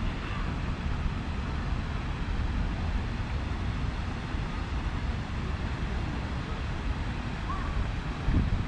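Steady low rumble of wind on the microphone, with a faint short high chirp near the end.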